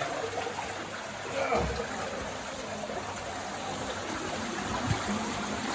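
Steady rush of water flowing and trickling into a flooded cave passage.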